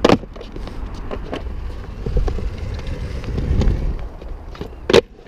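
Cut-down longboard slapping down hard on the concrete, then its wheels rolling with a low rumble and small clicks. A second sharp clack comes about five seconds in.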